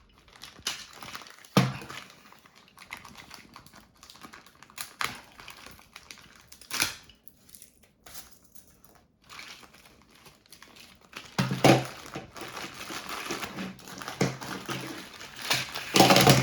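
Plastic and cardboard toy packaging rustling and crinkling as the toy is taken out of its box, with scattered clicks and knocks. The handling gets denser and louder for the last few seconds.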